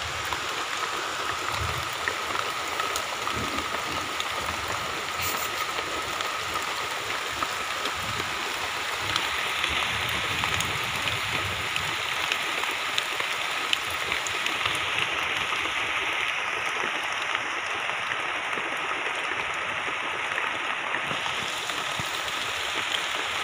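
Heavy rain falling steadily on banana leaves and the ground, with scattered drops ticking close by.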